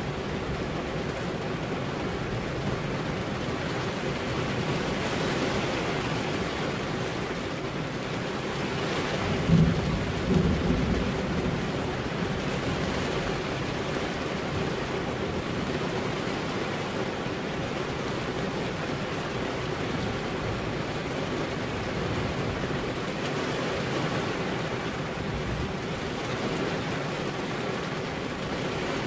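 Steady heavy rain, with a brief low rumble of thunder about ten seconds in.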